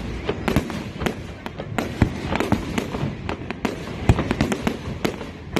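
Fireworks going off in quick, irregular succession: a dense stream of sharp bangs and crackles, with louder booms about two seconds in and about four seconds in.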